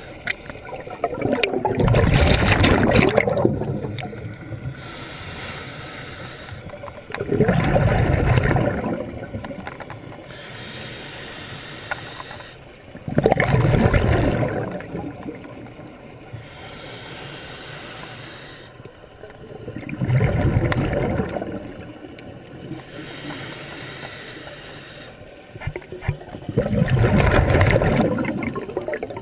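Scuba regulator exhaust bubbles from a diver breathing underwater: five long exhalations, each a loud two-to-three-second burst of bubbling, about six seconds apart, with a quieter wash of water between breaths.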